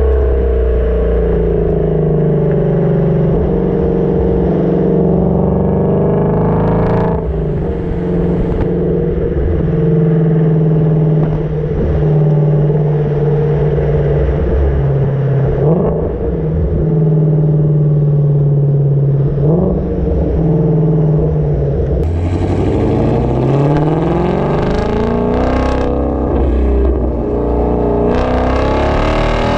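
Exhaust of a Ford Mustang Shelby GT350's 5.2-litre flat-plane-crank V8, heard at the tailpipes on the stock exhaust while driving. The note holds steady while cruising and rises briefly a few times with the throttle. About three-quarters of the way through it switches to the same car with a Corsa Double Helixx resonator-delete pipe, pulling up through the revs with a brighter, rising note.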